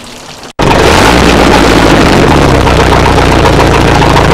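Brief hiss of hose water, then about half a second in, cutting in abruptly, the steady loud running of a stern-drive boat engine on a flush head, with fresh water being flushed through its cooling system and splashing out of the drive.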